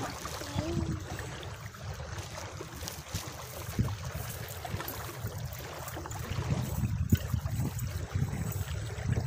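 Small waves lapping at the shore, with wind rumbling on the microphone.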